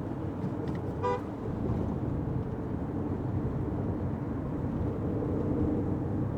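Steady engine and road noise heard inside a moving Fiat 500X, with one brief car horn toot about a second in.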